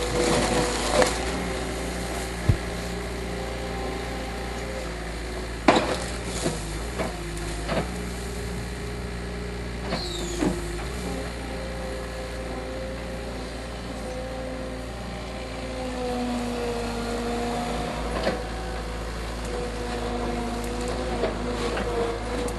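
Skid steer engine running steadily as its root grapple handles a dead tree, with scattered sharp cracks and knocks of wood and steel.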